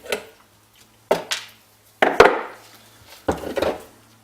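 Sharp knocks and clatter of tools and metal dynamo parts being handled and tapped while a Lucas C35SD dynamo is taken apart: four or five separate hits, the loudest about two seconds in.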